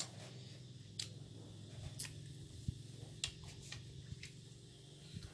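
Faint close-up eating sounds of chewing boiled buffalo skin: irregular sharp wet mouth clicks and smacks about once a second, over a low steady hum.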